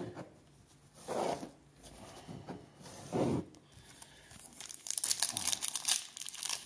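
Wrapper of a trading-card pack being torn open and crinkled by hand: two soft rustles, then steady crackling from about five seconds in.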